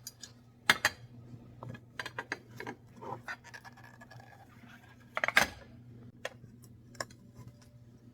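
Kitchen handling sounds: a dish and utensils clinking and knocking in a string of sharp clicks, with the loudest knocks about a second in and again about five seconds in.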